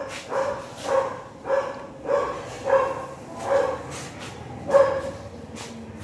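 Dog barking repeatedly, about seven barks in a steady rhythm of roughly one every half second or so, the loudest near the end.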